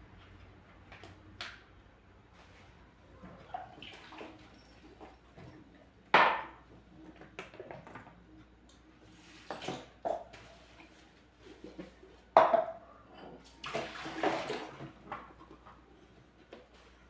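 Dishes being washed by hand at a kitchen sink: irregular splashes and short runs of water, the longest about a second, with small knocks of dishes and glass in between.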